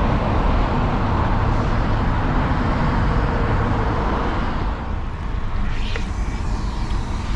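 Wind buffeting the microphone: a steady, loud rushing rumble that eases a little near the end.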